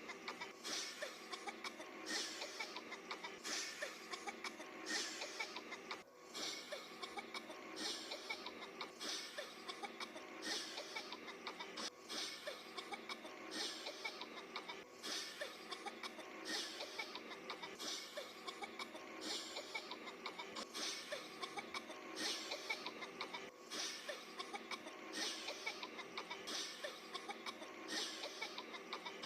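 Coughing over and over in short, breathy, hissy bursts, about one every second and a half, over a steady background.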